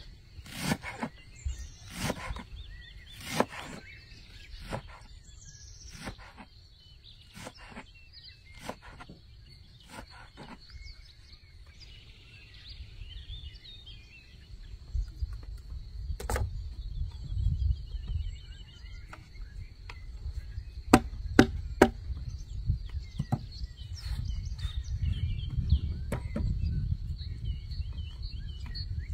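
Sharp knocks, like a knife chopping on a wooden board, come irregularly through the first third, then three quick knocks come about three-quarters of the way through. Birds chirp, and a low rumble grows in the second half.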